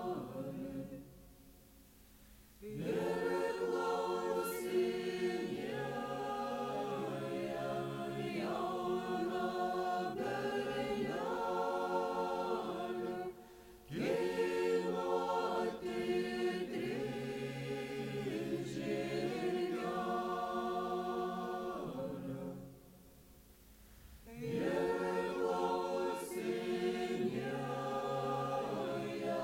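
A Lithuanian folk ensemble singing a folk song as a choir without accompaniment, in long phrases. The singing stops for about two seconds near the start and again about three-quarters of the way through, with a brief breath about halfway.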